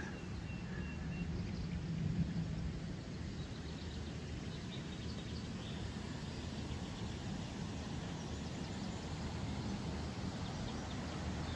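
Outdoor ambience by a pond: a steady low rumble with faint bird chirps now and then.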